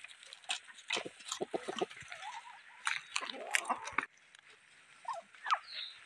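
A rooster making short, low, irregular clucking calls, mixed with scattered clicks and rustles.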